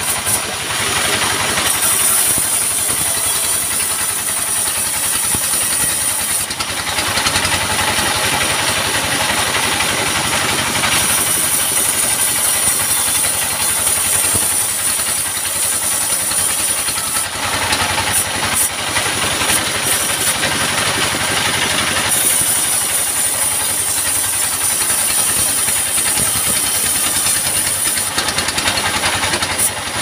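Portable sawmill running: its stationary diesel engine drones steadily while the saw rips lengthwise through a log. The noise changes character in turns every several seconds as the log is fed through.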